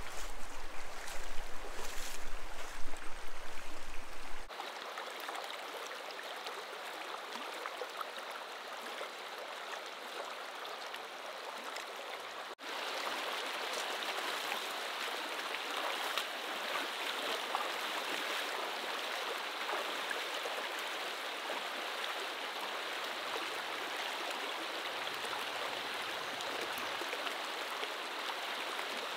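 Shallow, clear river running over a bed of stones and boulders: a steady rush of water. It is louder for the first few seconds, quieter, then a little fuller again from about halfway on.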